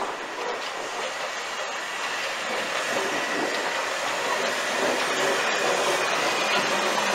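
Steady hiss of steam and rail running noise from a Welsh Highland Railway NGG16 Garratt steam locomotive, No. 143, growing gradually louder as it comes close alongside.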